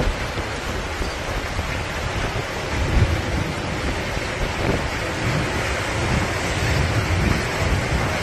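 Typhoon storm-surge waves crashing and washing over a breakwater, under strong wind that buffets the microphone with a heavy, gusty rumble. The noise is loudest about three seconds in.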